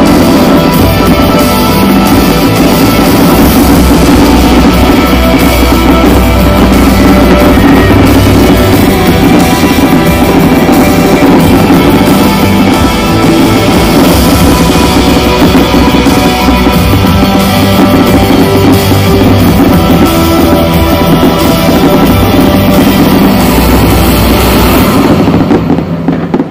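Loud rock music with a heavy drum beat, which breaks off just before the end.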